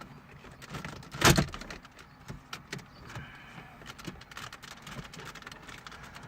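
Plastic dashboard trim of a 2012 Mitsubishi Lancer being pulled free by hand: one loud snap about a second in as it comes off its clips, then small plastic clicks and rattles as the panel is handled.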